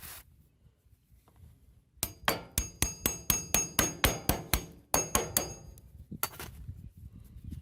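A hammer striking metal in a quick run of sharp blows, about five a second for some three seconds, each with a metallic ring, then one more blow: hammering out a worn axle bushing on a Craftsman riding mower.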